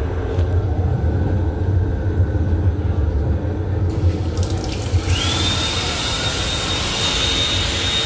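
Sensor-activated hand dryer in an M7 railcar restroom sink unit starting about five seconds in: its motor spins up to a steady high whine over a rush of blown air. The car's low running rumble underlies it throughout.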